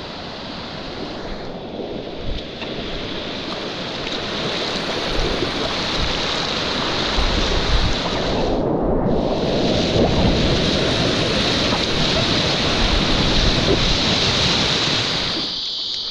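Whitewater rushing and churning around a packraft running a river rapid, with wind buffeting the microphone. The rush builds louder through the middle and drops away abruptly near the end.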